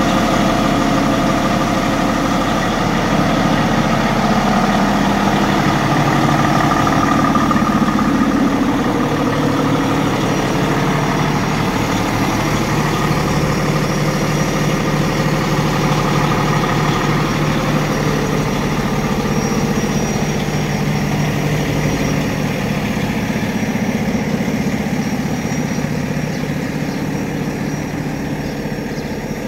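Tower ladder fire truck's diesel engine idling steadily, growing a little fainter near the end.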